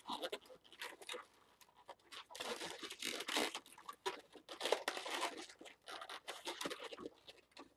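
Inflated latex twisting balloons being handled and twisted into an ear twist, giving an irregular run of rubbing and scraping noises.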